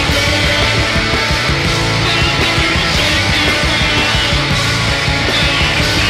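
Loud, dense math rock from a full-band recording: distorted electric guitars over bass and drums, playing steadily throughout.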